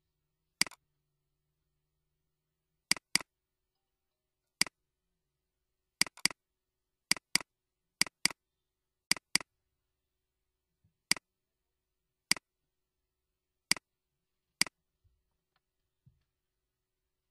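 Computer mouse clicks: sharp single clicks and quick pairs of double-clicks, about sixteen in all, with silence between them, as folders are opened on the PC.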